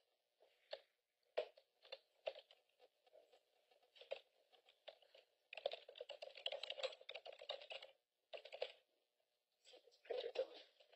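Faint computer keyboard typing: scattered key clicks, with a busier run of typing about halfway through and a short burst near the end.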